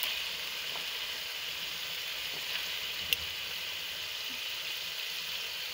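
Raw chicken pieces sizzling in hot masala in a metal pot: a steady frying hiss, with one sharp click a little past halfway.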